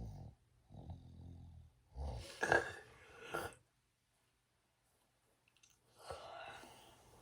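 A sleeping person snoring: a few low snores, then a louder, noisier breath about two and a half seconds in, a couple of seconds of quiet, and another breathy snore near the end.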